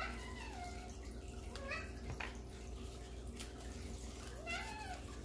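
A cat meowing three times: a falling meow at the start, a short one nearly two seconds in, and a rising-then-falling meow about four and a half seconds in.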